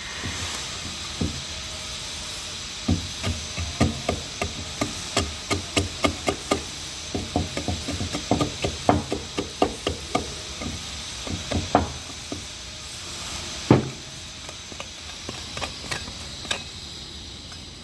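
Wooden hive box being knocked and tapped with a hand tool: a run of sharp knocks about two a second, with one louder knock a little after halfway and a few lighter taps near the end.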